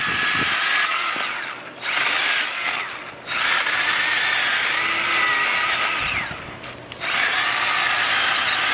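Cordless Milwaukee electric mini chainsaw running free without cutting: a high electric motor and chain whine, triggered in four bursts with short gaps. Each burst winds down in pitch as the trigger is released.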